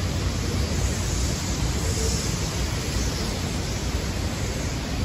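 Hurricane-force wind and driving rain blowing steadily: an unbroken rushing noise with a deep rumble underneath.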